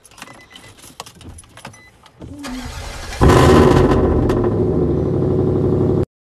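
Pickup truck engine being started: light clicks, then the starter cranking, and the engine catches about three seconds in and runs loud until the sound cuts off suddenly near the end.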